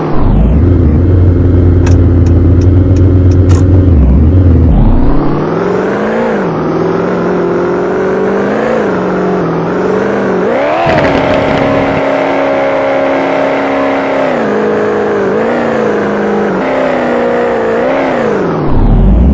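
2022 Maserati Levante Trofeo's twin-turbo V8 running with a deep low rumble and a quick run of sharp exhaust pops and crackles about two to three and a half seconds in. After that the engine note climbs and drops several times as it revs and accelerates.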